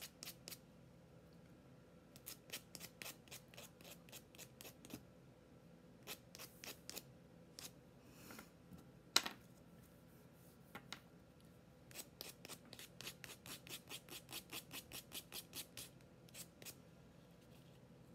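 A small wooden craft piece being sanded by hand: quick back-and-forth scraping strokes, about five a second, in several runs with pauses between them. There is one sharp tap about nine seconds in.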